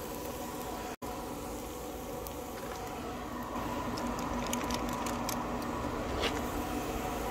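Steady low hum with faint crackling and ticking as raw hamburger patties go onto a hot charcoal grill grate; the crackles and overall level pick up a little about halfway through.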